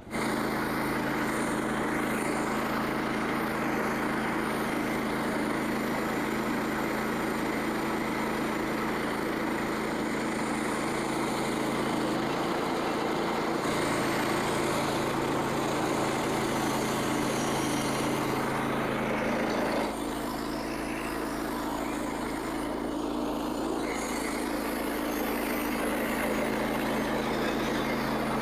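Gas engine of a Frontier OS27 portable bandsaw mill running steadily at speed as the band blade saws through a red oak log, with a slight drop in level about 20 seconds in.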